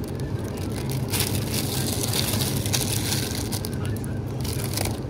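Crinkling of the thin plastic wrap around a bunch of green onions as it is gripped and handled, over a steady low hum.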